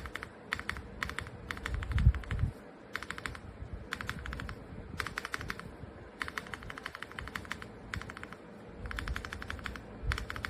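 Typing on a mechanical keyboard: quick runs of keystroke clicks broken by short pauses, with a low thump about two seconds in.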